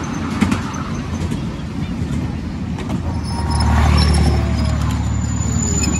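Miniature ride-on train running along its narrow-gauge track, a steady low rumble that swells about four seconds in.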